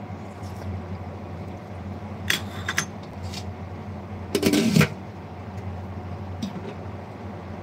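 Kitchen sounds while cooking: a steady low hum, a short run of clinks about two seconds in, and a louder clatter about four and a half seconds in.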